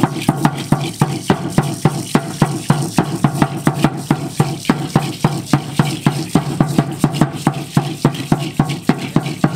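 A drum beaten in a steady fast rhythm, about four or five strokes a second.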